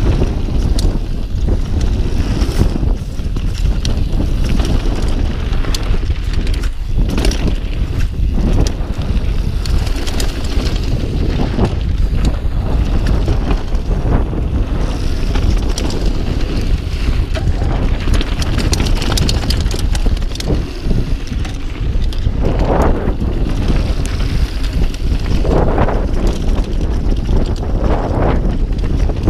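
Wind buffeting the microphone of a mountain-bike rider's camera on a fast descent, a steady low rumble, with many short rattles and knocks from the bike over the rough trail.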